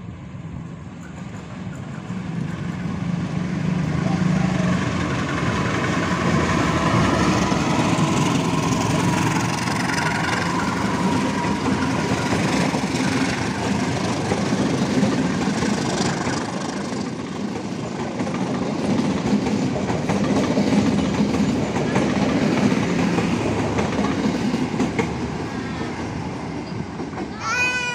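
A diesel locomotive-hauled passenger train passes close by. It grows louder over the first few seconds as the locomotive approaches, then the coaches keep up a loud, steady clatter of wheels over the rails.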